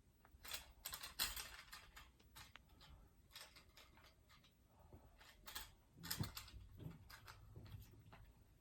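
Faint, irregular clicks and light knocks from small equipment being handled, loudest about a second in and again around six seconds.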